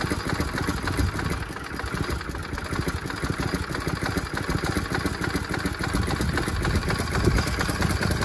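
Motor cultivator's small single-cylinder petrol engine running steadily at idle.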